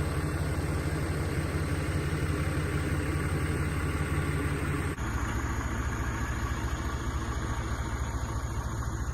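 Mini excavator's engine running steadily with a low, even pulse; the sound changes abruptly about five seconds in.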